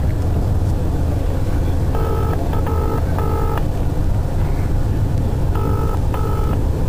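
Ringing tone of an outgoing mobile phone call, heard from the phone's speaker as a British double ring: short buzzy rings in pairs, over the steady low rumble of a moving passenger train.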